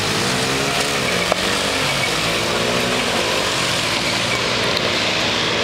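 Small motorbike engines running as they ride along at steady speed, over a constant rush of wind and road noise. There is one short click about a second in.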